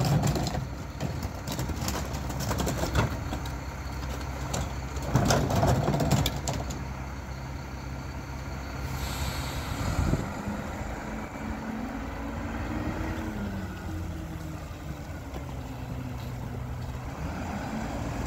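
Mack GU garbage truck's diesel engine running, with knocks and clatter of carts being tipped into the Leach rear-loader hopper in the first several seconds. About nine seconds in an air brake hisses, and the engine then revs up and down as the truck pulls away.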